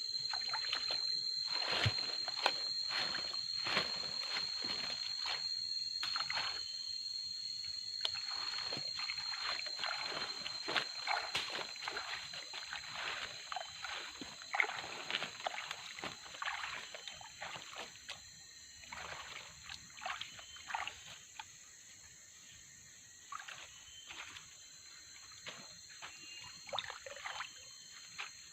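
Someone wading through a shallow stream, water sloshing and splashing with each step, busy at first and sparser in the second half, over a steady high-pitched insect drone.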